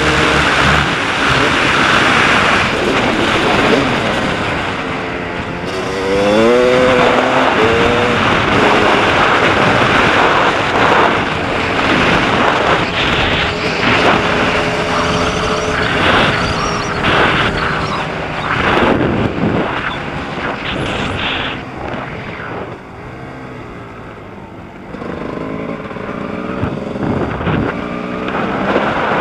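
Dirt bike engine under hard throttle while riding, the revs climbing and dropping repeatedly as it goes through the gears. It eases off for a few seconds near the end, then pulls again.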